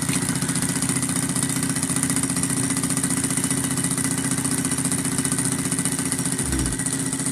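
Home-built vertical beta Stirling engine running steadily at about 1050 rpm, its carbon-graphite piston riding in a brass sleeve and its crankshaft turning stainless flywheels, making a fast, even mechanical rhythm. The piston and displacer are not yet weight-balanced, so the engine runs unbalanced.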